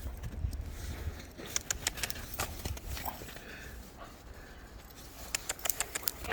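A dog moving about in snow, with a scattered series of short clicks and crunches over a steady low rumble.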